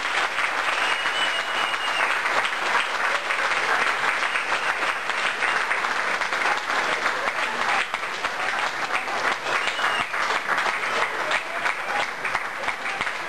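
Audience of seated guests applauding, a dense, sustained clapping.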